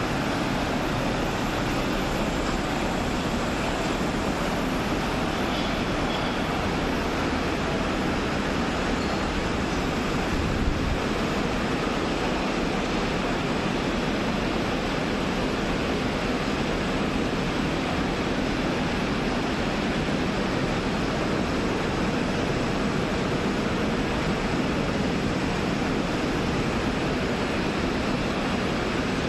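Steady mechanical noise of rubber hose production machinery, knitting and spiral hose lines, running in a factory hall, with a single brief knock about ten seconds in.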